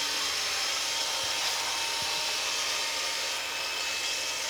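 Roomba robot vacuum running steadily on the floor: an even fan-and-brush noise with a thin motor whine.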